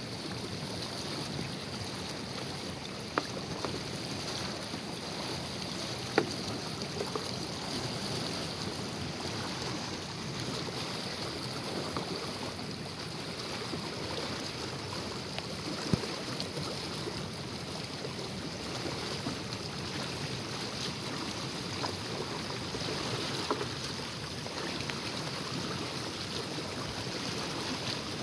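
Steady rushing of a full, fast-flowing muddy river, with a few sharp clicks scattered through.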